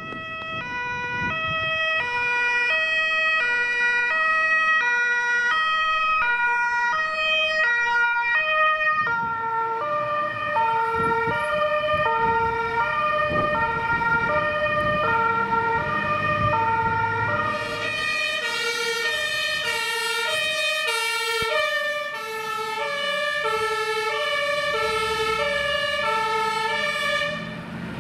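German two-tone fire engine sirens sounding on an emergency run, the high and low notes alternating steadily. About nine seconds in the pattern changes to a slower alternation from another vehicle, a second siren overlaps it from about eighteen seconds, and a truck engine rumbles under it in between.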